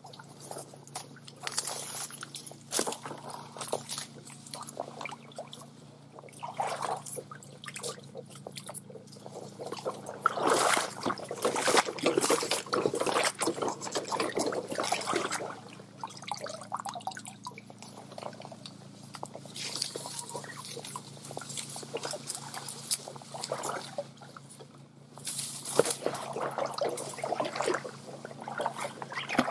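Water trickling and sloshing in a shallow stream in uneven splashing bursts, loudest about ten to fourteen seconds in and again near the end.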